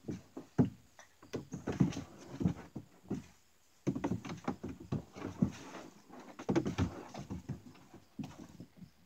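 Standard poodle puppy pawing and scrabbling at a hollow plastic step stool: clusters of knocks, thuds and scrapes, in three spells with short pauses between.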